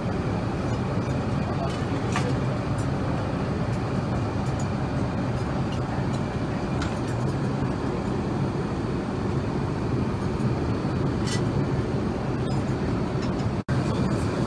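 Steady in-flight cabin noise of an Airbus A380: the even rush of airflow and engines heard from a seat inside the cabin, with a few faint clicks. It cuts out for an instant near the end.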